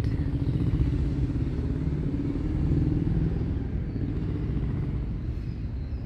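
An engine running steadily, a low rumble with a faint wavering hum.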